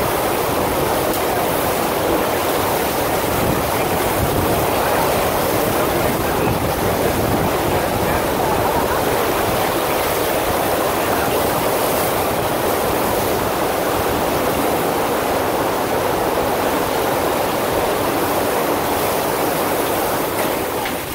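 Steady rush of water from a FlowRider sheet-wave machine: pumped water pouring in a thick sheet up the padded ride surface, dropping a little in level near the end.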